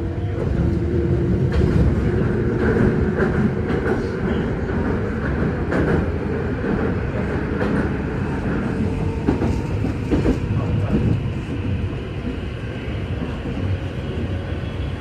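Meitetsu commuter train running on the rails, heard from inside the car: a steady rumble with clicks of the wheels passing over rail joints. A faint motor whine rises in pitch near the end.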